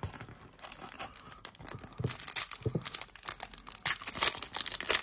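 A Yu-Gi-Oh booster pack's foil wrapper being torn open and crinkled by hand: a dense crackle that gets louder from about two seconds in.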